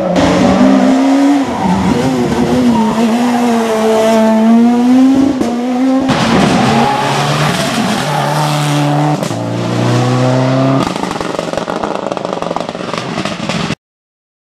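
Rally cars at full speed on a special stage: an engine held at high revs with its pitch swinging up and down, then, after a cut at about six seconds, another car's engine climbing in steps as it revs through the gears. The sound cuts off abruptly near the end.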